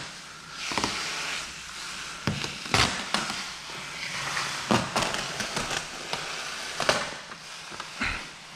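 Handling and rubbing sounds of paint protection film being worked onto a car bumper: scraping and crackling of the film with a series of sharp clicks and taps.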